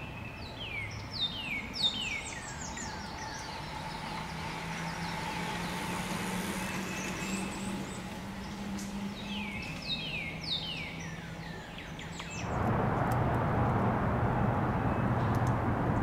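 Wild songbird calling: a quick run of high, falling whistled notes at the start, repeated about ten seconds in, over a faint low steady hum. About twelve seconds in, the background changes suddenly to a louder steady rushing noise.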